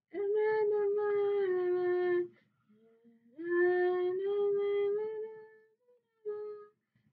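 A girl singing a slow tune without words, in long held notes: two phrases of about two seconds each, then a brief note near the end.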